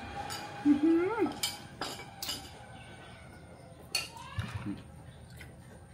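Spoons and dishes clinking a few times while people eat, with a short rising vocal sound about a second in.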